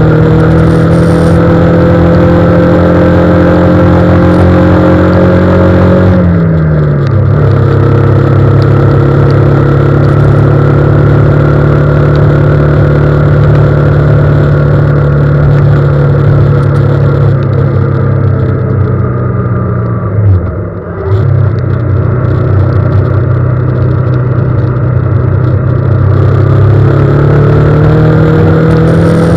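A vehicle's engine running steadily while driving on a wet road in the rain. Its pitch rises slowly, drops sharply about six seconds in, dips briefly again around twenty seconds, and climbs near the end.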